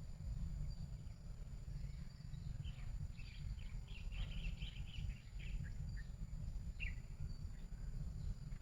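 Birds chirping outdoors: a quick run of short, high calls a few seconds in and a single call near the end, over a steady low rumble.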